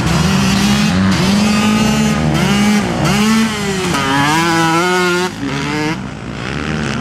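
Motocross bike engines revving up and down as riders power through a dirt corner close by, several engines at different pitches overlapping. The revs briefly drop and the sound dips about five seconds in before it picks up again.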